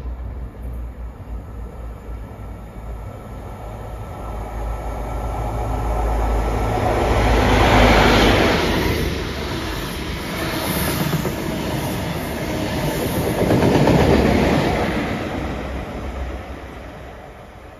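High Speed Train with a Class 43 diesel power car at each end passing through a station at speed without stopping. The sound builds to a peak as the leading power car goes by about 8 seconds in, eases over the coaches, peaks again as the rear power car passes a few seconds later, then fades as the train moves away.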